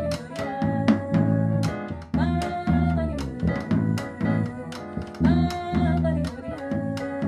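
Jazz band playing a chacarera live: long held melody notes over a walking bass line, piano and sharp drum hits in a steady rhythm.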